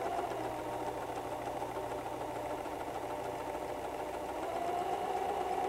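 White 1735 electric sewing machine running steadily, stitching the right side of a buttonhole in a narrow zigzag, getting slightly louder about four and a half seconds in.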